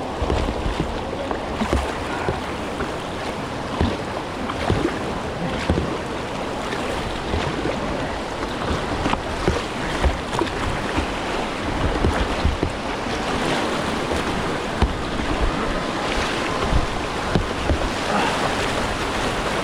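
Rushing river water splashing around a whitewater kayak, with frequent short splashes and knocks, and a low rumble of wind on the microphone.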